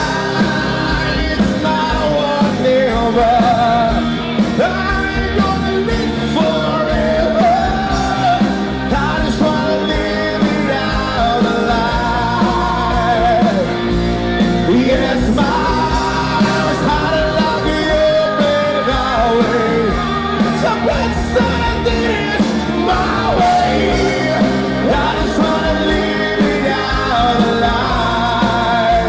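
Rock music with a singing voice over a steady band.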